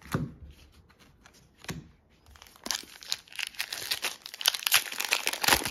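Foil wrapper of a Pokémon TCG booster pack crinkling and being torn open, a dense crackly run from about two seconds in, after a few light taps from handling the cards.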